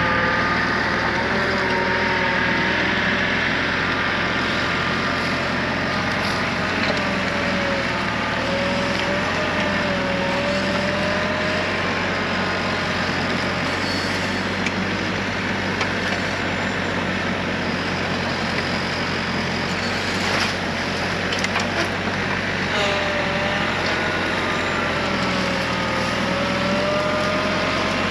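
Bobcat E42 mini excavator's diesel engine running steadily under load, with a higher whine that wavers up and down in pitch as the machine works.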